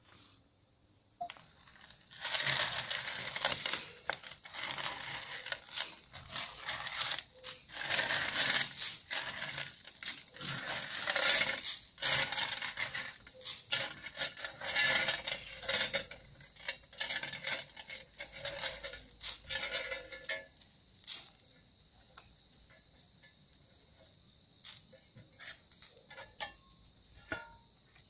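Hands scraping and shifting small stones and gravel against hard tile, a dense irregular run of scraping and clinking that thins to scattered clicks about two-thirds of the way in.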